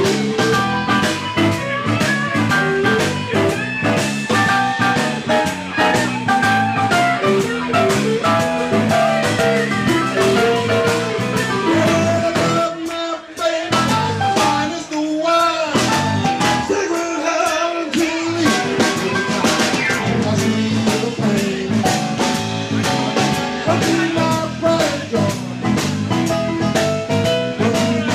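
Live electric blues band playing an instrumental stretch of a shuffle, with steady drum-kit hits and a lead instrument over the band. About halfway through, the low end drops out for a few seconds in a short break, then the full band comes back in.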